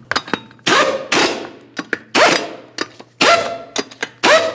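A 1/2-inch impact gun running 21 mm lug nuts down onto a wheel in four short bursts about a second apart, one per nut, with light clicks between them. The nuts are being bottomed out before final torquing.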